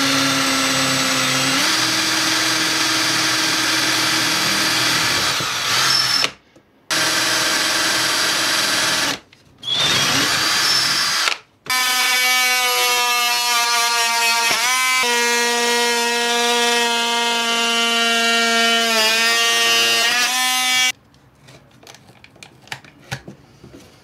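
A cordless drill boring through MDF, its speed rising a second or two in, stopping briefly and restarting a few times. From about halfway an oscillating multi-tool cuts out the opening with a steady buzz, dipping twice, then stops near the end, leaving a few faint handling clicks.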